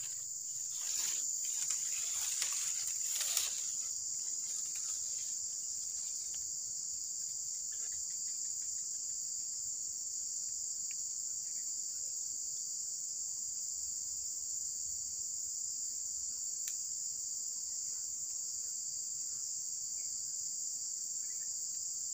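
Steady, high-pitched drone of an insect chorus, with a few brief rustling noises in the first four seconds.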